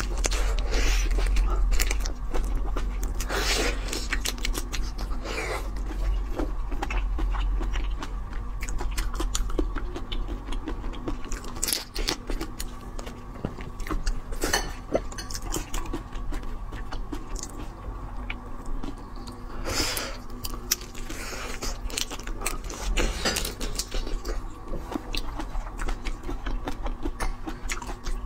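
Close-miked eating of whole marinated shrimp: biting, chewing and crunching of the shells, with many small wet clicks and a louder crunch every few seconds.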